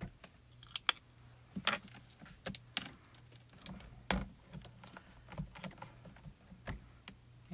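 Irregular sharp clicks and light plastic knocks, loudest about a second in and again around four seconds: a mini ink cube dabbed onto a clear photopolymer stamp, then the hinged clear door of a stamp-positioning tool handled and pressed down. A faint low hum runs underneath.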